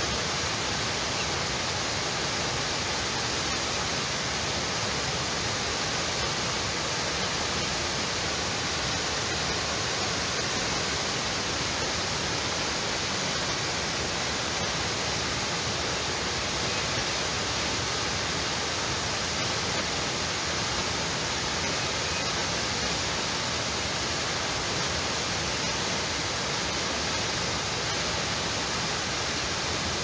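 Waterfall running at high flow after heavy rain, its water cascading down steep rock slabs: a steady, unbroken hissing rush.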